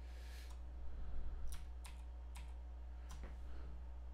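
A handful of faint, sharp computer keyboard and mouse clicks, about five spread irregularly, over a steady low electrical hum.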